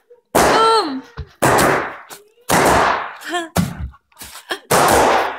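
Bubble wrap popping under a toddler's bare feet: about four loud, sharp pops, each trailing off briefly. A voice calls out with a falling pitch just after the first pop.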